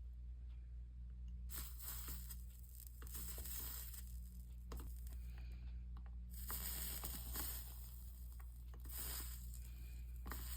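Flux sizzling and crackling under a soldering iron as 60/40 solder is melted along copper-foiled stained-glass seams. It comes in two long stretches with a brief break about six seconds in, over a steady low hum.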